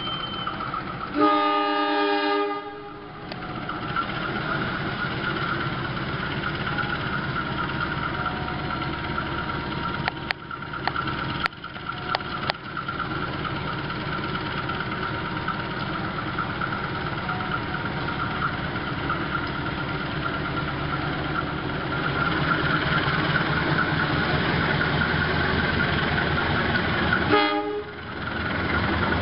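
CC 203 diesel-electric locomotive sounds its horn once, a chord of about a second and a half. Its engine then runs steadily as it hauls the train out, growing louder toward the end as it draws close, with a brief second horn note near the end.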